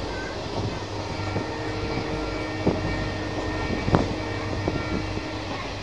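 Passenger train running at speed, heard from inside the coach at an open window: a steady rumble and hum, with two sharp clicks near the middle.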